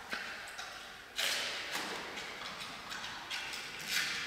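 Giant panda chewing bamboo shoots, with a series of sharp crunches: the loudest about a second in, more at irregular intervals and another strong one near the end.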